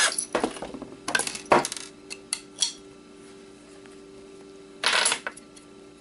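Small metal hard-drive parts and screws clinking and clattering as they are handled and set down: a run of sharp clinks in the first two seconds, then a short scrape about five seconds in and a few light clicks.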